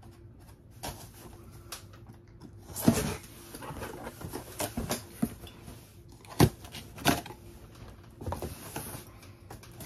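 Cardboard shipping box being slit open with a box cutter and its flaps pulled apart: scraping and rustling of cardboard with a few sharp knocks, the loudest about three seconds in and again twice around six to seven seconds in.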